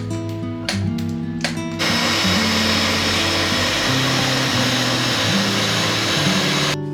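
Background music with a steady beat and bass line. About two seconds in, a loud, even rushing noise rises over it and cuts off suddenly near the end.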